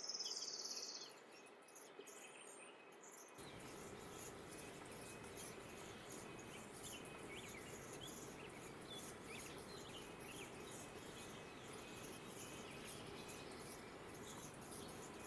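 Hummingbird singing: a thin, repeating series of short high chirps and very high ticks over faint outdoor background noise, beginning a few seconds in. A brief high tone sounds in the first second.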